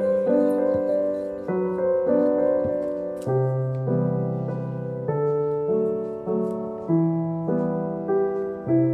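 Background piano music: gentle sustained chords and notes that change about once a second.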